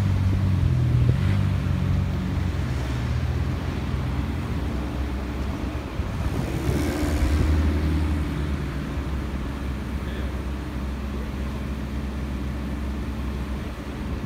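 A mobile crane's engine runs steadily as it hoists a load. Its pitch shifts during the first few seconds, and it grows louder for a moment about seven seconds in.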